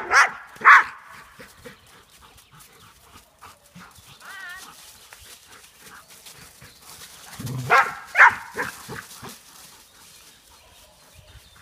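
Shepherd dogs barking in play: a few loud barks at the start and again about eight seconds in, with a fainter wavering yelp about four and a half seconds in. Dry leaves rustle under their paws.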